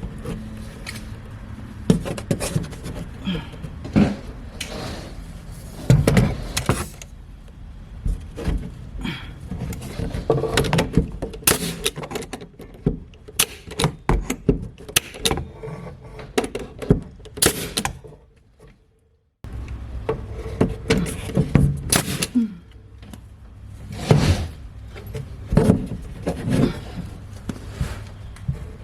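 Irregular knocks, thuds and clatter of wood paneling being handled and fitted against a wall. The sound cuts out for about a second roughly eighteen seconds in.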